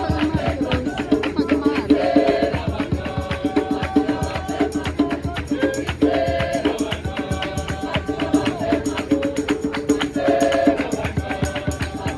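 Background music: a track with a steady percussion beat and a melodic phrase that repeats about every four seconds.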